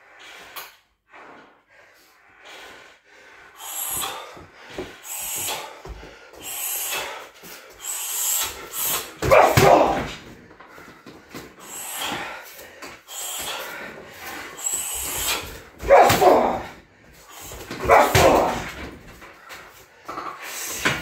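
Muay Thai kicks and knees landing on a 60 kg Everlast heavy bag, starting after a few quiet seconds: repeated thuds of shin on the bag with the fighter's sharp exhales. The three loudest strikes come about nine and a half, sixteen and eighteen seconds in, each with a short bark-like shout.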